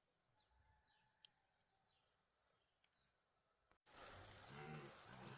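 Faint countryside ambience: a steady high insect buzz, with short falling bird chirps repeating every half second or so. Near the end, an abrupt cut brings in a much louder low sound that pulses about three times a second.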